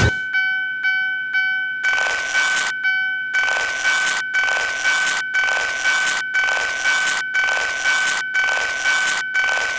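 Japanese railroad crossing warning bell ringing 'kan-kan', repeating strikes about twice a second over a steady high tone. About two seconds in, a rushing noise joins it, pulsing in and out.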